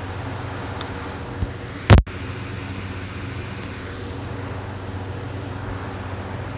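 A steady low hum runs throughout, and a single sharp knock about two seconds in is the loudest thing, like the recording phone being bumped. A fainter click comes just before it.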